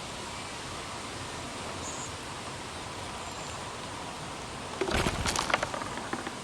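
Steady wind noise, with a short burst of rustling and crackling about five seconds in.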